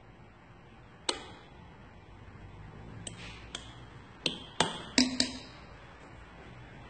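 A metal teaspoon clinking and tapping against porcelain cappuccino cups as foam is spooned out. A few separate clicks, then a quick cluster of louder ones about four to five seconds in, the loudest with a short ring.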